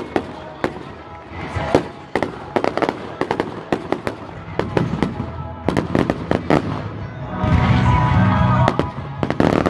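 Fireworks display: shells bursting and crackling in rapid, irregular bangs, getting louder and fuller near the end.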